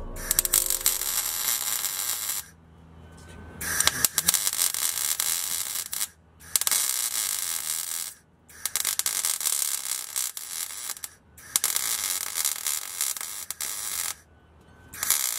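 MIG welder crackling and buzzing as it welds a steel exhaust pipe. It runs in about six runs of roughly two seconds each, with short pauses between them.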